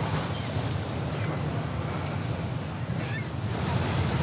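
Sea waves washing with wind buffeting the microphone, a steady rush.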